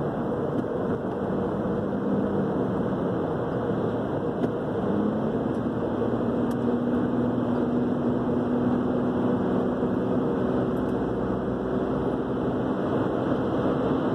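Steady car road noise heard from inside the cabin at highway speed: tyre rumble and engine hum, the hum rising slightly in pitch about five seconds in.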